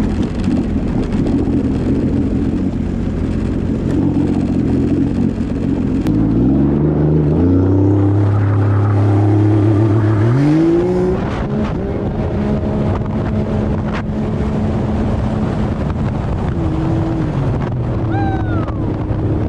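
Turbocharged three-cylinder 1500 cc Sea-Doo RXP-X jet ski engine running on the water. Its pitch climbs in steps as it accelerates about a third of the way in and again about halfway, then drops back, with a shorter rise and fall near the end.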